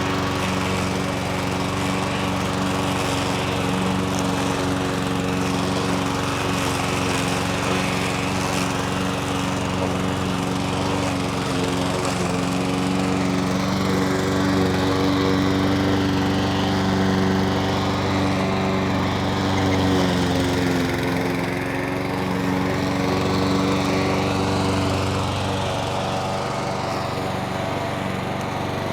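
Lamborghini petrol lawn mower's small engine running steadily, with slight rises and falls in pitch as it works.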